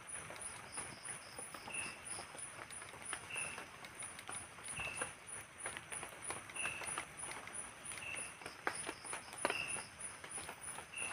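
Night forest ambience in light drizzle. An insect calls in rapid, even high-pitched pulses, about three a second, and a short chirping call repeats about every second and a half. Scattered light taps and drips sound over a soft hiss.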